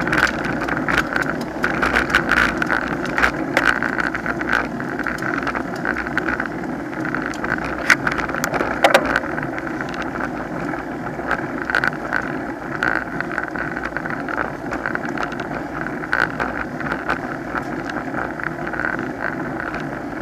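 Riding noise picked up by a camera mounted on a road bike rolling on asphalt: a steady rush of wind and road noise with frequent small clicks and rattles.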